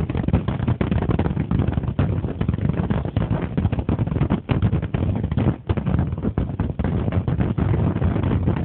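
Wind noise on the microphone: a low rumble that flutters constantly up and down in level.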